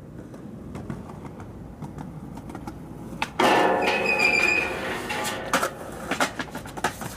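Skateboard wheels rolling on concrete with a few clicks, then about three seconds in the board hits a metal stair handrail and slides down it with a loud ringing scrape for about two seconds. Sharp clacks follow as the board lands and the wheels roll on the pavement.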